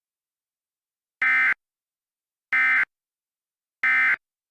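Emergency Alert System end-of-message signal: three short, buzzy digital data bursts, evenly spaced about a second and a quarter apart, marking the end of the alert.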